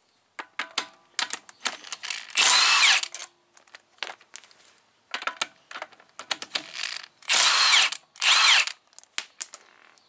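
Milwaukee cordless power wrench running in three short bursts to take the wheel's lug bolts out, its motor whine rising and falling within each burst. Between the bursts come sharp clicks and clinks of bolts and tool handling.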